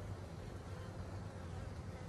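Honeybees from an opened hive buzzing: a faint, steady hum.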